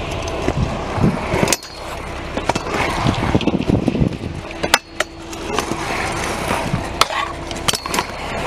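Stunt scooter wheels rolling on concrete, with several sharp clacks of landings and deck impacts.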